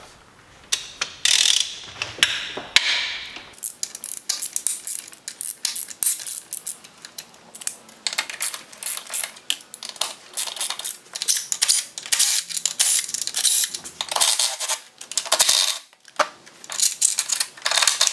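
Socket ratchet wrench clicking in quick runs as the engine mount bolts are undone, with short pauses and a few metal clinks of tools and bolts.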